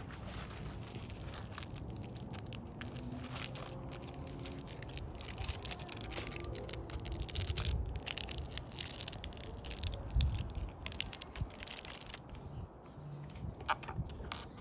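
Dense, irregular crackling and scraping of plastic being handled, as the floodlight's housing is pressed and shifted against its mounting bracket. It thins out about twelve seconds in.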